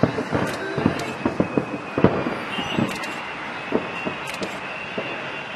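Aerial fireworks going off in a rapid string of bangs and pops, thickest in the first three seconds and sparser after, over a steady background rush.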